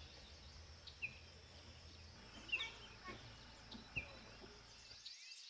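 Small birds chirping: a few short, separate calls about a second apart, with fainter twittering behind them, over a low steady background rumble that cuts off shortly before the end.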